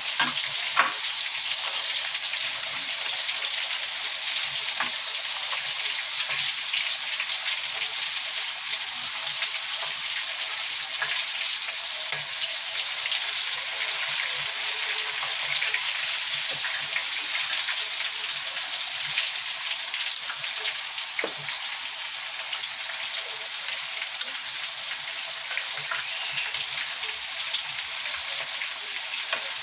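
Breaded chicken pieces deep-frying in hot oil: a steady sizzle with scattered pops and crackles, getting a little quieter about two-thirds of the way through.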